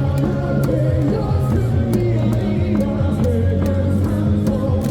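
Loud cheering music with a steady drum beat and bass, with singing, playing over a baseball stadium's sound system.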